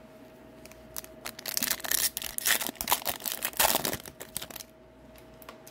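Hockey card pack wrapper being torn open and crinkled while the cards are pulled out, a dense crackling from about a second in until near the end.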